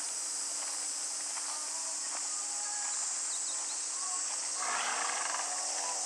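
Steady high-pitched chorus of insects, with faint short chirps scattered through it and a brief louder rushing noise about five seconds in.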